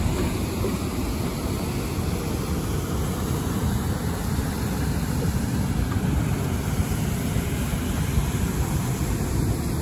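Steady rushing noise of a waterfall and turbulent river water, heaviest in the low end.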